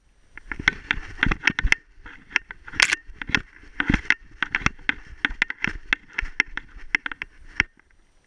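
A dog running through snow, heard from a camera strapped to its harness: a quick, irregular run of crunching knocks from its strides, a few a second, stopping about a second before the end.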